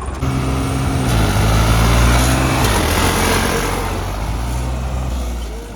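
Tractor diesel engines running hard under load during a tug-of-war pull. The engine pitch shifts as they work, loudest about two seconds in, then easing off near the end.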